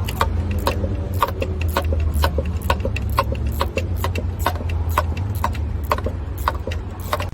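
Ratchet wrench with a spark plug socket clicking in short strokes, about two or three sharp clicks a second, as a spark plug is turned in the engine head. A steady low hum runs underneath.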